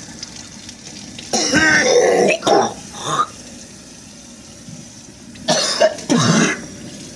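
A man coughing and clearing his throat in two loud fits, one starting about a second and a half in and another near the end, his throat irritated by dry ground cinnamon.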